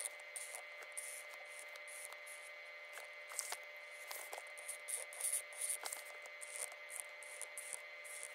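Fineliner pen nib scratching across sketchbook paper in short, irregular strokes as curved lines are inked. A faint steady whine sits underneath.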